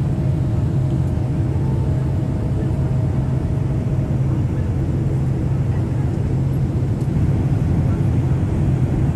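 Airliner cabin noise heard from a window seat on the approach: a steady low rumble of the jet engines and airflow.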